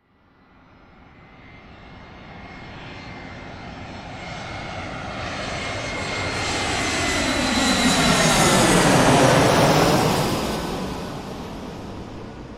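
Airplane flying overhead: the engine sound starts faint, grows steadily louder to a peak about nine seconds in, then fades away as it passes.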